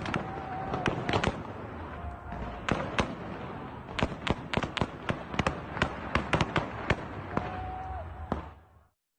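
Heavy gunfire: many sharp shots in quick, irregular strings with short pauses between them. It cuts off near the end.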